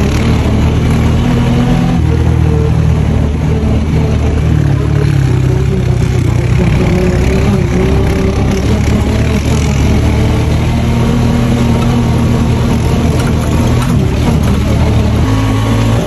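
Off-road buggy engine running while the buggy drives, its pitch shifting up and down several times with the throttle.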